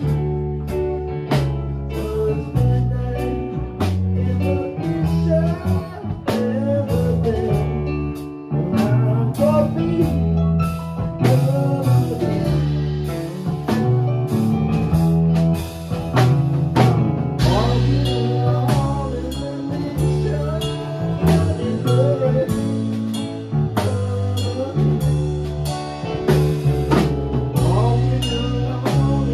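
Live band playing a slow blues-rock song: drum kit keeping a steady beat under electric guitars and keyboard, with a lead guitar line over the rhythm.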